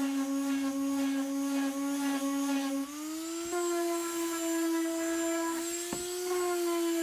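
Small electric power-tool motor running with a steady whine, its pitch rising about three seconds in as the load changes, with a sharp click near six seconds.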